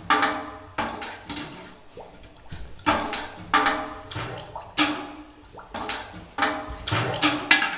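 A live chamber ensemble of violin, cello, piano and percussion playing a series of sudden attacks at irregular spacing, roughly one a second, each ringing briefly at a pitch and fading away.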